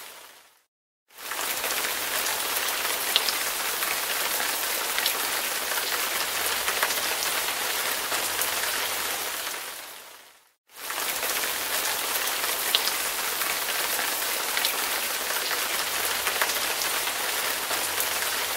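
Steady rain-like hiss with scattered faint ticks, a looped background track. It fades out and back in twice, briefly near the start and again about ten seconds in.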